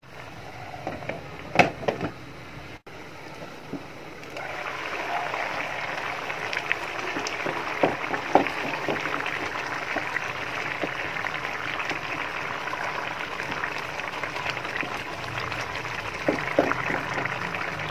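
Thin tomato-and-onion curry gravy bubbling at a boil in a kadai: a steady crackling hiss that gets louder about four seconds in. A spatula scrapes and taps against the pan now and then.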